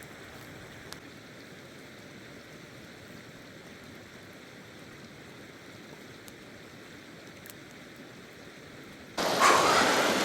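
Steak and burger patty sizzling on campfire coals: a faint, steady hiss with a few small crackles. About nine seconds in it gives way abruptly to a much louder rushing noise.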